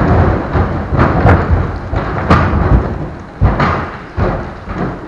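A large audience rising from its seats at once: many folding auditorium seats knocking up, with shuffling and rustling of clothing. The clatter thins out near the end.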